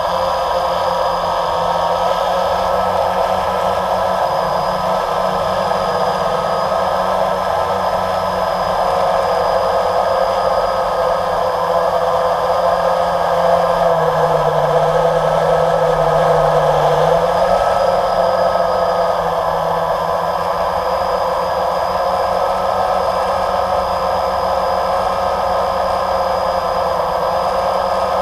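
Electric motors and propellers of a small camera drone, heard from its onboard camera as a loud, steady whirring buzz with several held tones. The motor pitch dips briefly about halfway through, then returns.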